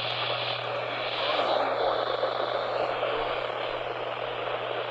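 Off-air radio reception noise: a steady hiss of static over a low, constant hum.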